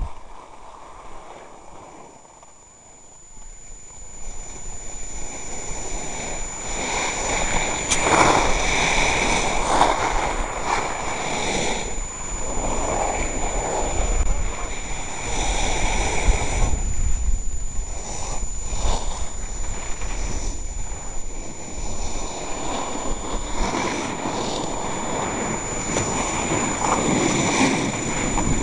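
Rushing wind buffeting the microphone of a camera skiing downhill, mixed with the hiss and scrape of skis sliding and turning on snow. It is quieter for the first few seconds, then louder in uneven surges.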